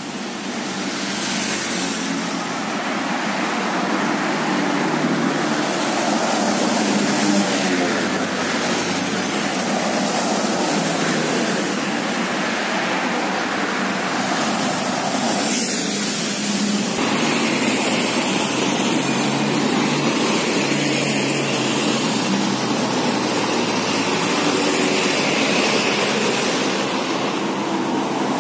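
Steady road traffic passing close by: motorcycles, cars and large intercity buses driving past, their engines and tyres rising and fading as each goes by.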